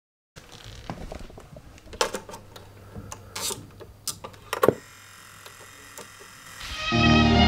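Portable record player being worked by hand over a steady low hum: a series of sharp clicks and knocks as the tonearm is lifted, moved and set down on a 45 rpm single. Near the end, string music starts playing from the record.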